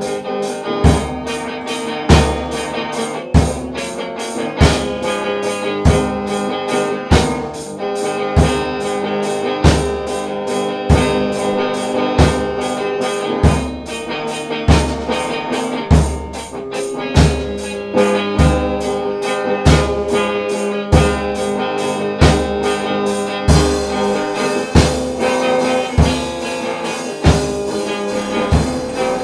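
Soundtrack music: a band playing a steady drum beat with guitar, the bass drum hitting about every 0.7 s.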